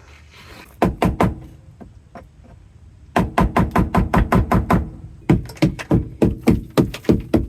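Rubber mallet beating frozen sound deadening on the sheet-metal floor of a 1985 Nissan 300ZX, dull knocks that crack the brittle, dry-ice-and-alcohol-chilled mat loose. A few blows about a second in, then fast runs of blows, four or five a second, from about three seconds on.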